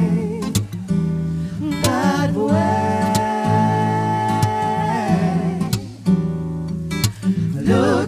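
Vocal group singing wordless sustained harmonies with vibrato over strummed acoustic guitar and a steady low vocal bass line.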